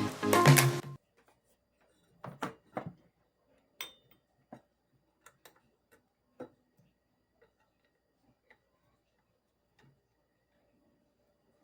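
Background music cuts off about a second in. Then come scattered light clicks and taps as ceiling-fan parts, screws and tools are handled, several close together at first and thinning to a few faint ticks.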